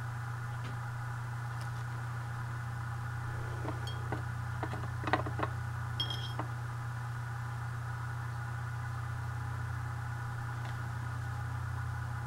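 A steady low hum under a handful of light clicks and taps about four to six seconds in, with a brief light clink near the end of them: a paintbrush and the watercolor set being handled while swatching.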